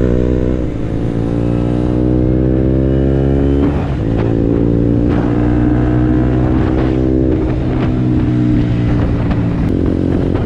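KTM 125 Duke's single-cylinder engine accelerating through the gears: its pitch climbs steadily, drops at an upshift about three and a half seconds in, climbs again, and drops at another shift about seven seconds in.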